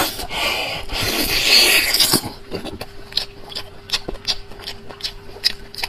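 Close-up mouth noises of eating braised beef bone meat: about two seconds of wet sucking and slurping at the meat and tendon on the bone end, then quieter chewing with many short wet lip and mouth clicks.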